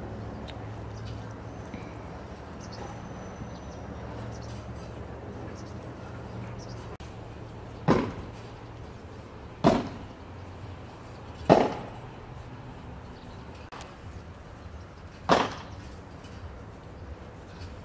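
Four sharp slaps, irregularly spaced, of a ball of mashed potato being patted between the palms to shape it, over a low steady background hum.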